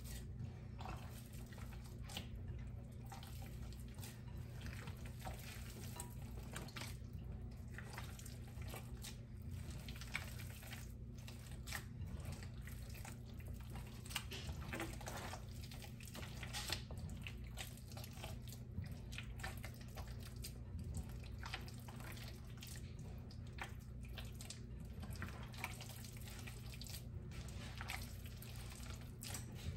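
Hands mixing a wet meatball mixture of meat, milk and eggs: irregular soft squelching, over a steady low hum.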